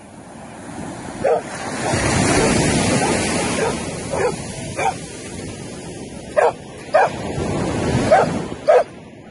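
Dog barking in short, high yips, about eight times, over a rushing wash of noise that swells about two seconds in and then fades.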